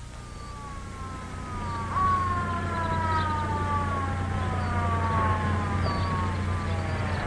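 Patrol car siren wailing, its pitch sliding slowly downward, louder and higher from about two seconds in, over a steady low hum.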